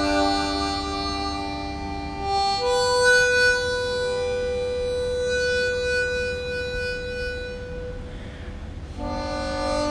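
Solo harmonica playing a slow, sad tune: a chord at the start, then one long note held for about five seconds, and a new chord near the end.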